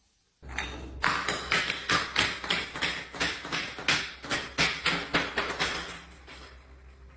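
Brown glass bottle tumbling down tiled stairs, knocking and clinking against the steps in a fast run of sharp taps, about five a second, that die away as it reaches the floor.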